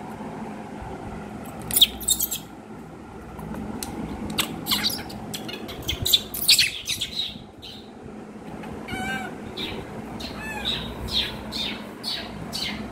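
A baby monkey giving a string of short, high-pitched squeals and shrieks, a few of them wavering up and down in pitch. A steady low hum runs underneath.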